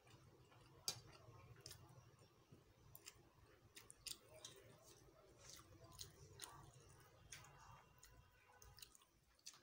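Faint sounds of eating rice by hand: chewing, and fingers mixing rice on a steel plate, with scattered soft clicks, the sharpest about a second in.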